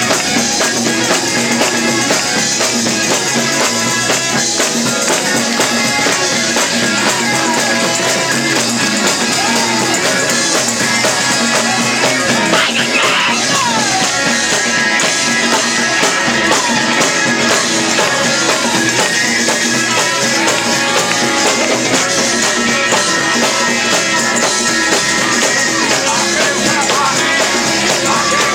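Live gospel band music with singing, playing continuously.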